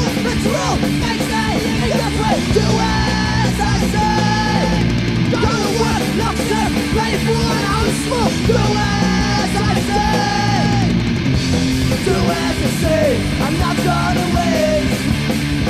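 Hardcore punk song with distorted electric guitars, bass and drums, and shouted vocals.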